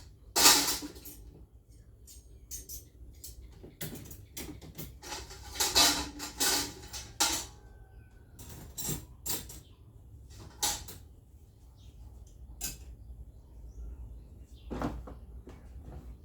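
Irregular knocks, clicks and rustles of kitchen items being handled, with a couple of louder scraping bursts.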